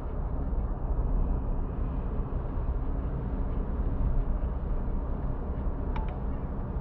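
Car driving at motorway speed: a steady low rumble of tyre, road and engine noise.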